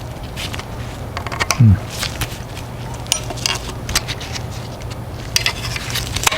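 Hands handling 3D-printed plastic parts and a bolt during assembly: scattered small clicks and taps, with one louder thump about a second and a half in, over a steady low hum.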